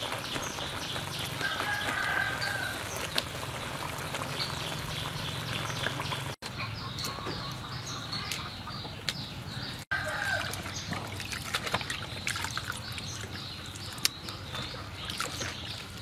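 Water trickling and splashing as lettuce leaves are washed and lifted dripping from a metal basin, with birds chirping in the background.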